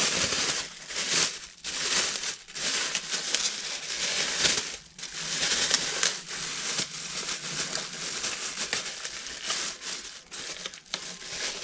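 Packaging crinkling and rustling irregularly as a new car stereo is unwrapped by hand.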